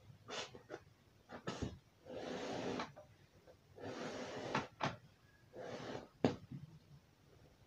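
Yarn pulled through the edge of a woven plastic sack with a long sewing needle: three scraping, rustling pulls of about a second or less each, with sharp clicks and ticks between them as the needle and sack are handled.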